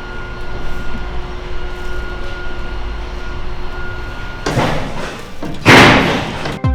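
Freight elevator running with a steady hum and a faint whine that stops about four and a half seconds in, followed by two loud scraping crashes about a second apart, the second the loudest.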